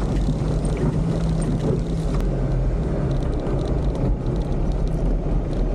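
Toyota off-road competition 4x4's engine running at a steady pitch, heard from inside the cabin while driving, with occasional clicks and knocks from the vehicle over the rough track.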